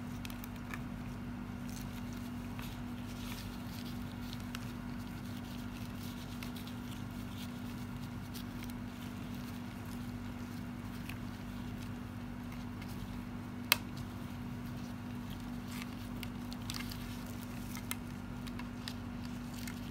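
A steady low hum under faint rustles and small ticks as gloved hands fold and roll a thin lumpia wrapper. One sharper click comes about two-thirds of the way through.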